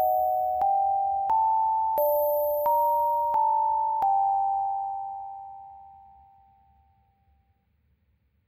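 Closing bars of an electronic music track: clean synthesizer chords struck one after another, about every two-thirds of a second. The last chord comes about four seconds in and fades away over the next few seconds to near silence.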